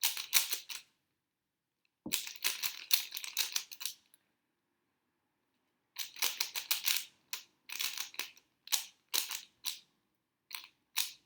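Rubik's cube being turned fast in a speedsolve: rapid plastic clicking and clacking of the cube's layers, in bursts of a second or two with short pauses between them.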